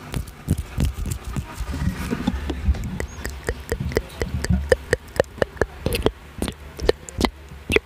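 Close-miked ASMR mouth sounds: a series of sharp, wet clicks that come about three or four a second from around three seconds in.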